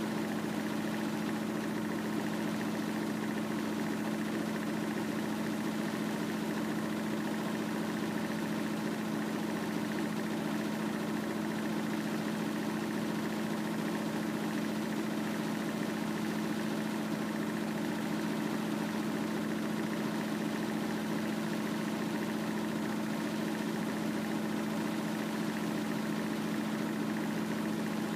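Front-loading washing machine running a 60 °C wash, a steady hum that holds one pitch without change.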